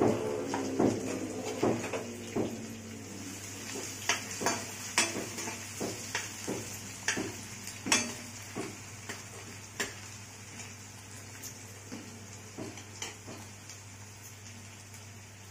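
A metal perforated spoon scraping and knocking against a kadai as chopped onion is stirred in hot oil, with a steady sizzle of the onion frying. The knocks come thick at first, then thin out and get quieter near the end.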